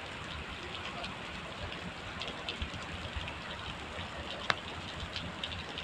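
Heavy rain pouring onto wet asphalt: a steady hiss with scattered small drop ticks. One sharp tap comes about three-quarters of the way through.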